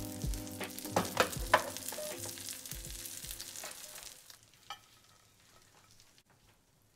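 Hot foil-lined baking tray of pecan-crusted trout, fresh from the oven, sizzling and crackling, with a few sharp knocks about a second in as it is set on the stove grates. Soft background music plays underneath and stops about three and a half seconds in, after which it goes much quieter.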